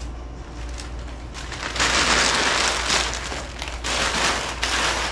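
Rustling and crinkling of a cloth dust cover being bundled up and folded by hand, in several bursts, loudest about two seconds in.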